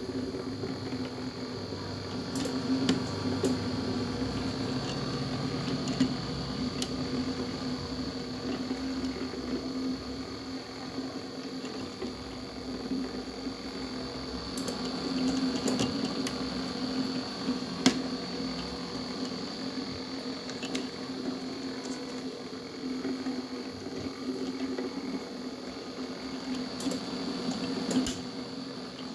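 A steady machine hum with a few light clicks and taps scattered through it.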